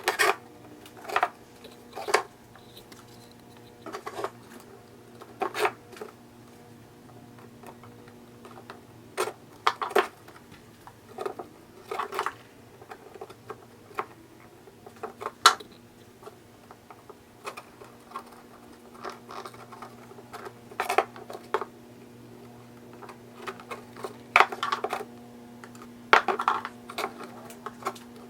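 Irregular clicks and taps of a tape-wrapped screwdriver and hands pressing rubber grommets into the mounting holes of a plastic motorcycle windscreen, over a steady low hum.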